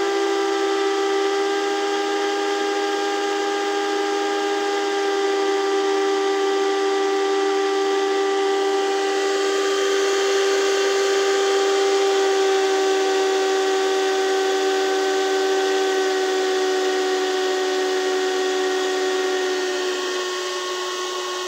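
Cooling fans of an Antminer S9 hashboard test rig running at high speed with a steady whine of several held tones over airflow hiss, the pitch easing slowly lower. About 20 s in the whine drops a little in pitch and loudness.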